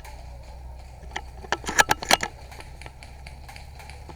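Airsoft gunfire: a quick, irregular run of sharp clicks and snaps about a second to two seconds in, over a steady low rumble.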